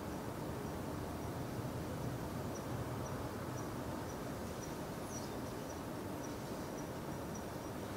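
Outdoor ambience: a steady low rumble with a faint high chirp repeating about twice a second, and a short, sharper chirp about five seconds in.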